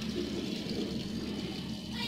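LG fully automatic top-load washing machine running with water in the drum, a steady rushing sound.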